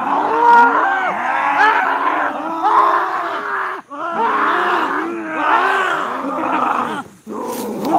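Several men's voices yelling and groaning over one another in a scuffle, with animal-like growling cries, breaking off briefly just under four seconds in and again about seven seconds in.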